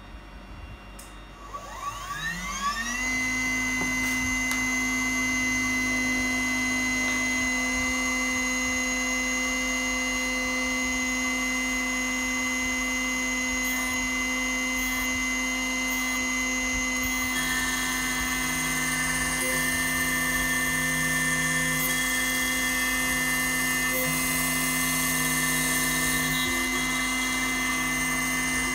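Small CNC milling machine's spindle spinning up with a rising whine, then running at a steady high pitch. About 17 seconds in the sound changes, with a lower tone and more hiss added.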